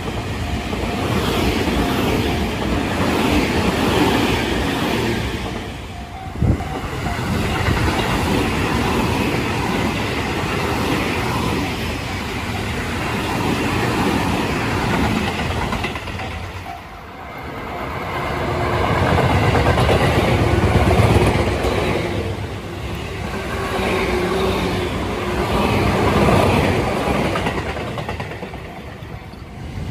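Tobu Tojo Line electric commuter trains running over a level crossing, wheels clattering on the rails, with a sharp knock about six seconds in. The sound dips just past the middle, then builds again as another stretch of train passes.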